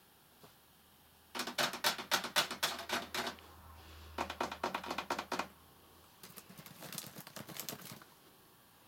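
Three bursts of rapid clicking, several clicks a second, each burst lasting one to two seconds.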